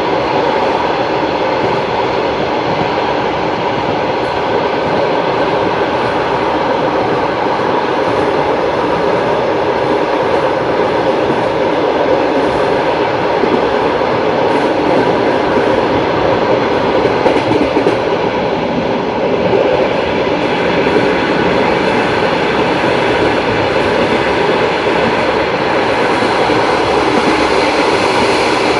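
Passenger train wheels clattering on the rails at speed, a loud steady rumble with no letup.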